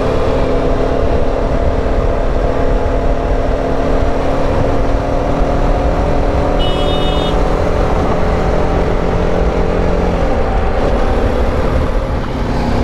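Motorcycle engine running steadily at riding speed, mixed with wind and road rumble, heard from the rider's seat; its steady note drops away about ten seconds in. A brief high-pitched beep about seven seconds in.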